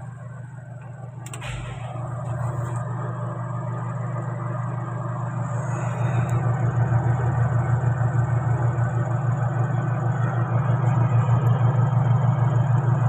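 A motor running with a steady low hum and an even pulse. It grows louder about two seconds in and again about six seconds in, with a short click near the start.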